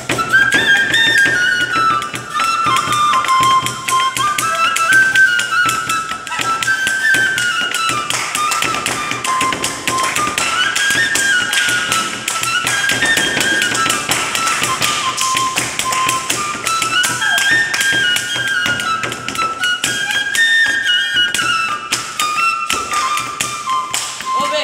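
Bamboo transverse flute (bashi) playing a folk melody that steps up and down. Hands drum a quick, steady rhythm on a wooden tabletop in place of tabla.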